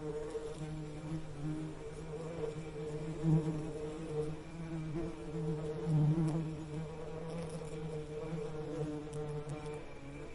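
Bees buzzing in a steady, wavering drone that swells briefly about three and six seconds in.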